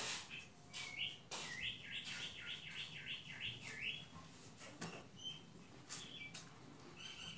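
A songbird singing a quick run of about eight rising-and-falling notes between about one and four seconds in, then a few short chirps, with some sharp clicks.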